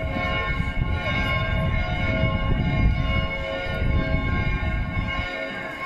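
Church bells of St. Stephen's Cathedral ringing, many tones hanging on together in a steady ring over an uneven low rumble.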